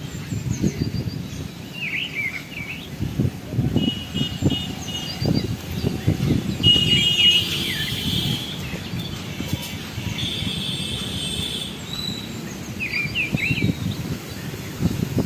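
High-pitched animal chirping calls in short wavering bursts, with brief steady whistled notes between them, over irregular low rumbling noise.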